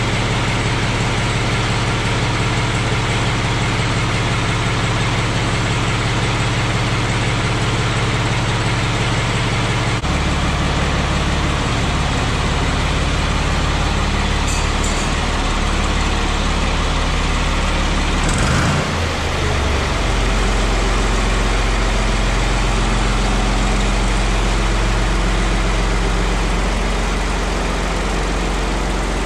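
Ford 4600 tractor engine running steadily. Its speed shifts down about ten seconds in and again around twenty seconds in.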